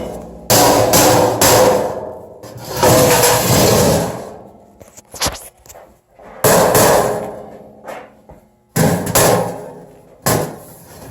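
Sheet-metal drop-in cap being struck down onto a furnace plenum, about six heavy blows. Each one rings out and fades over a second or so.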